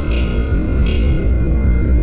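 Background music with a heavy, steady bass line and a distorted electric guitar.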